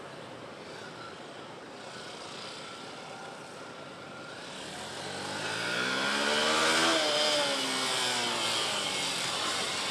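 Yamaha FZ-S motorcycle engine running at low revs through tight turns, then revving up about halfway through, its pitch rising to a peak about seven seconds in and falling as the throttle eases off.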